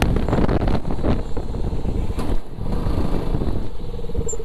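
Motorcycle engine running as the bike is ridden along the road, heard from the rider's seat, with a steady pitched note coming in near the end.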